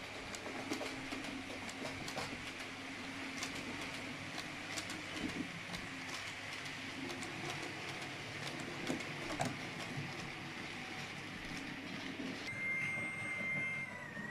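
H0-scale model passenger train running along the track, its wheels clicking over the rail joints over the low hum of its motor. Near the end the clicking stops and a steady high whine takes over.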